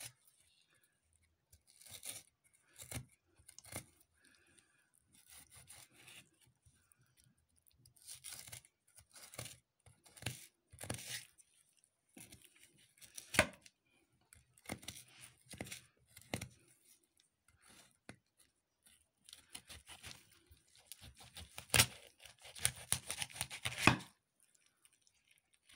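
Kitchen knife cutting a fillet off a sea bass: irregular short rasping strokes as the blade slices through the flesh along the backbone and ribs, quickening into a dense run of strokes about twenty seconds in.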